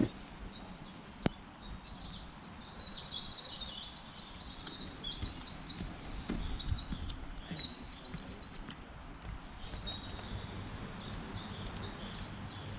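A small songbird singing several phrases of rapid, high trills over a steady low background rumble, with one sharp click about a second in.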